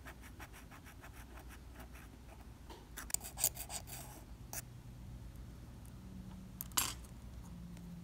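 Fine metal tweezer tips scraping and picking dried superglue off an Apple Watch Series 4 frame: faint rapid scratching, a louder run of scrapes about three seconds in, and one sharp scrape near the end.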